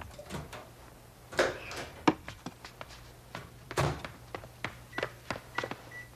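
A scatter of light knocks and taps, with two louder thuds about a second and a half in and near four seconds, and a few short high beeps near the end.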